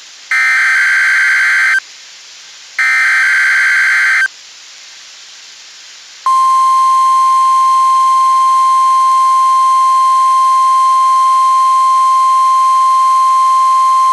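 NOAA Weather Radio Required Weekly Test tones. The second and third of three identical SAME digital header bursts, each a harsh warbling data burst about a second and a half long, then about two seconds of hiss. About six seconds in, the steady 1050 Hz tone-alert alarm tone starts and holds.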